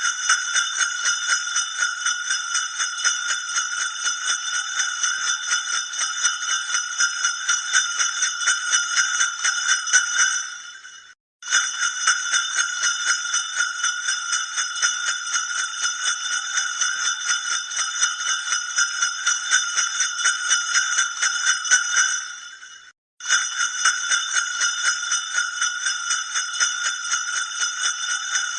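Santa Claus bells jingling rapidly and without pause. The bright ringing fades out and stops briefly twice, then starts again as the sound effect loops.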